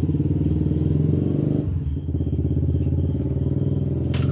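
A motor engine running steadily with a low, rapidly pulsing rumble that dips briefly about one and a half seconds in; a single sharp click near the end.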